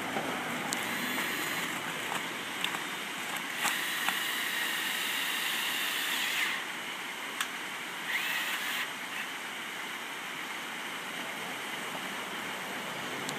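Cordless drill whining in short runs as it drives screws into a metal fence post: briefly about a second in, for about three seconds from around three and a half seconds, and a short rising spin near eight seconds, with a few sharp clicks in between. The steady rush of a nearby stream runs underneath.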